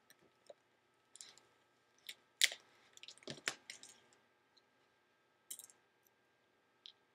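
Hands handling parts and tools on an opened MacBook Pro top case: irregular small clicks and taps, with a cluster of them about two and a half to four seconds in.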